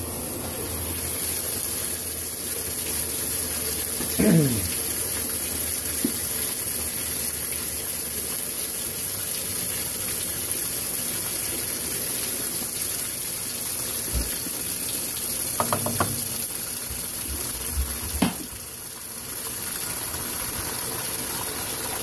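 Kenmore 80 Series direct-drive top-loading washer filling its tub with water for the wash, a steady rush of water. There is a brief falling squeak about four seconds in and a few light knocks in the second half.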